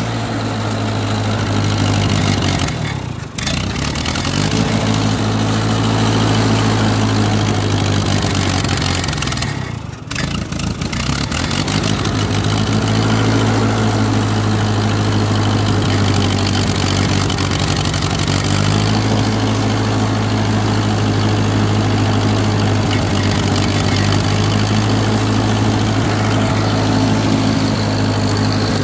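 1939 Ford 9N tractor's four-cylinder flathead engine idling steadily after a cold start, heard close to its upright exhaust muffler. It dips briefly twice, about three seconds in and again about ten seconds in.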